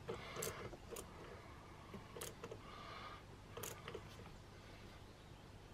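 Faint, irregular metallic clicks as a lock nut is tightened by hand onto a vehicle battery terminal, about half a dozen over a few seconds.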